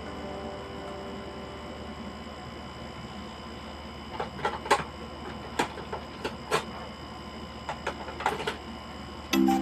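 Hard plastic clicking and knocking as a printer's black plastic cover panel is handled and taken off: a string of sharp clicks from about four to eight and a half seconds in, over a faint steady hum. Background music starts near the end.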